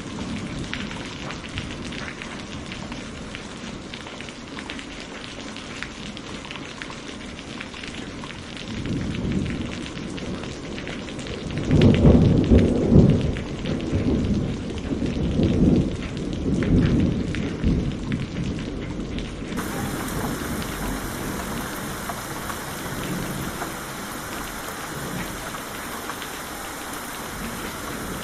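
Steady rain falling, with thunder rolling in about a third of the way through. The thunder is loudest a few seconds later and rumbles on in swells for several seconds before fading back under the rain. About two-thirds of the way in, the rain abruptly turns brighter and hissier.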